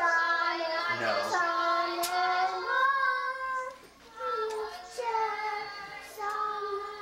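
A young girl singing a slow tune in long held notes that slide from one pitch to the next, with a short break about four seconds in.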